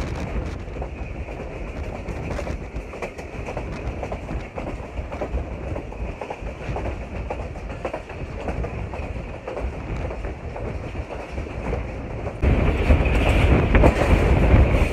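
Passenger train running at speed, heard from inside a coach: a steady rumble with wheels clacking over the rail joints. About twelve seconds in the sound suddenly gets louder, with a heavier rumble.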